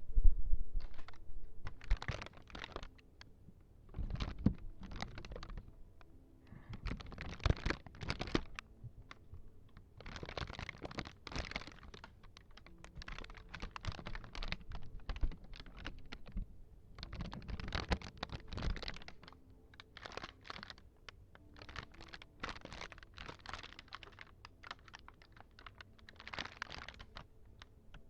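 Close-miked ASMR props being tapped and scratched: irregular clusters of quick clicks and scratches, much like fast typing, with short pauses between clusters.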